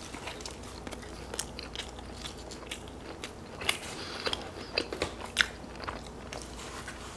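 Close-miked biting and chewing of a glazed doughnut and then a pizza crust dipped in blue cheese dip: a run of short mouth clicks and smacks, with a few sharper ones between about three and a half and five and a half seconds in.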